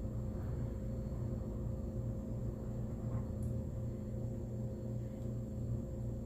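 Steady low hum with a faint high whine: room background noise.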